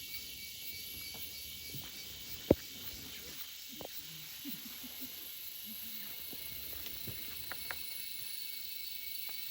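Steady chorus of rainforest insects, a constant high droning and hiss, with one sharp knock about two and a half seconds in and a few faint ticks later.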